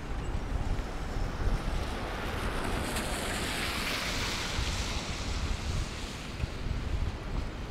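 A vehicle passing on a snowy street: a hiss of tyres that swells to a peak partway through and fades away, over a low rumble of wind on the microphone.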